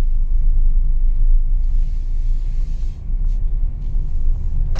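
Steady low engine and road rumble heard from inside a moving manual car pulling away in low gear, with a brief lull about three seconds in.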